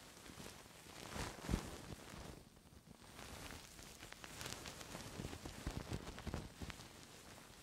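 ASMR ear-cleaning sounds on a microphone ear: soft scratching and rustling with light crackles, and one sharper tap about a second and a half in.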